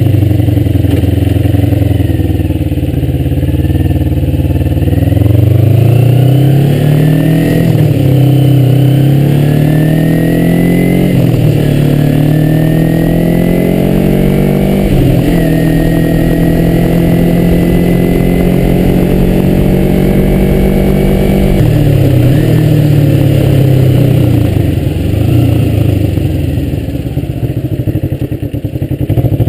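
2003 Kawasaki Ninja 250's parallel-twin engine heard from on board. It pulls up through the gears, rising in pitch and dropping back at each of three or four shifts, then holds a steady pitch at cruise. About two-thirds through it falls in pitch as the bike slows, then rises again at the very end.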